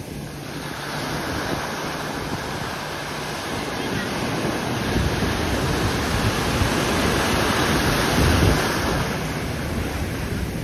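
Sea waves washing and breaking, with wind buffeting the microphone; the wash swells to its loudest about eight seconds in.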